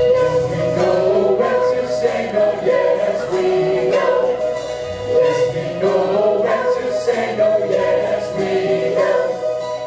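Choir of voices singing a song together with musical accompaniment.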